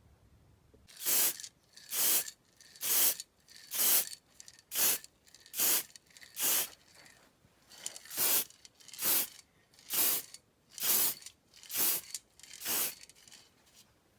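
Aerosol spray paint can (Colourette Cherry Red) hissing in short bursts, about one a second with a brief pause past the middle, as a coat of paint goes onto a die-cast model car body in short passes.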